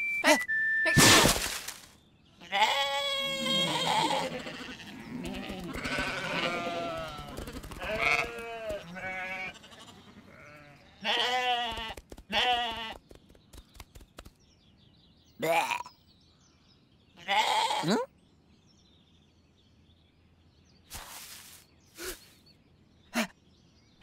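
Cartoon sheep bleating: several wavering bleats overlap for about ten seconds. After that come two short, louder noises and quieter stretches with a few faint clicks.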